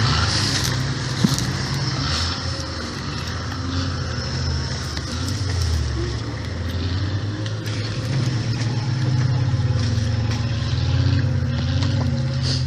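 Off-road 4x4's engine running steadily at low revs, with small rises and falls in pitch, as it works through the terrain.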